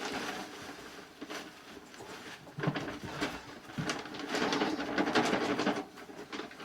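Clatter and rustling of equipment being handled and moved around a barn: a run of scattered knocks and clicks, busiest in the middle few seconds.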